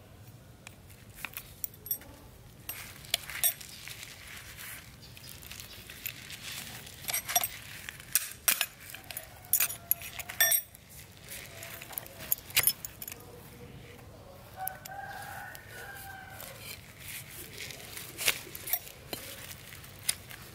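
A rooster crowing in the background, a long call about three quarters of the way through, over a run of sharp clicks and taps from hand work with tools and parts.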